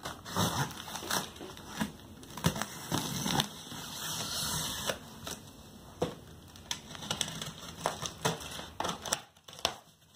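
Pocket knife slitting packing tape on a cardboard shipping box, with the cardboard flaps scraping and crackling in irregular strokes and sharp ticks.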